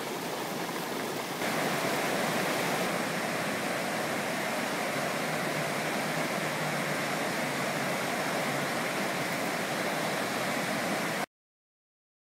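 Floodwater rushing: a steady, even rush of fast-flowing water that gets louder about a second and a half in. It cuts off abruptly near the end, leaving silence.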